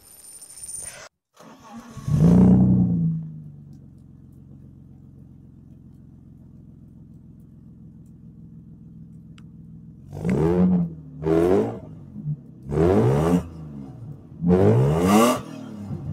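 BMW E34 524td's 2.4-litre turbodiesel straight-six starting up with a short burst of revs and settling into a steady idle. Near the end the throttle is blipped four times, each rev rising and falling in pitch.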